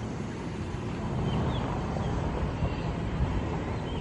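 Wind rumbling on the microphone, low and uneven, with a few short bird chirps.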